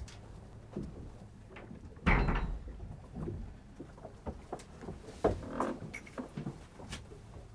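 Irregular knocks and bumps of someone moving about a fishing cutter's cabin, with one heavy thud about two seconds in and a cluster of knocks a little after five seconds, over a faint low steady hum.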